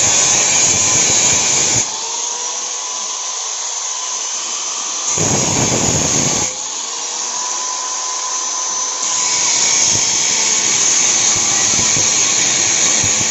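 Suzuki APV's G16A engine running with a loud, steady hissing exhaust noise over a low rumble, the exhaust noise issue the owner is tracing to the catalytic converter and muffler. The noise drops abruptly about two seconds in, comes back loud briefly around five seconds in, and swells again after about nine seconds.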